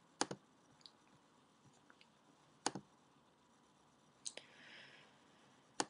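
Computer mouse button clicking four times, sharp separate clicks a second or two apart, over quiet room tone.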